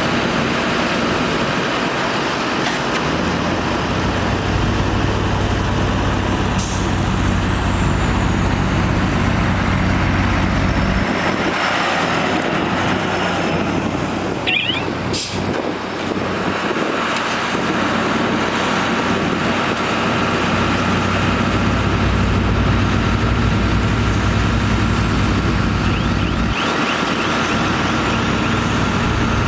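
LiuGong bulldozer's diesel engine working under changing load while pushing dirt. Its deep engine note swells and drops back a few times, with a single sharp clank about halfway through.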